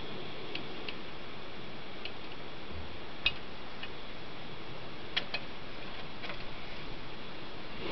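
Vintage Optimus 199 stove burner running on white gas with a steady soft hiss, and about eight light, irregular ticks, the sharpest about three seconds in.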